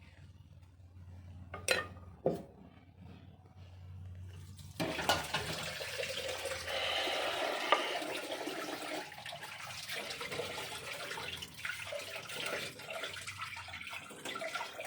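Two light knocks, then water running steadily from a tap, starting about five seconds in.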